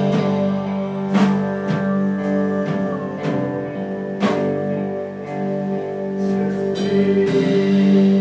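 Live rock band playing: held guitar notes ringing over drums, with irregular drum and cymbal hits.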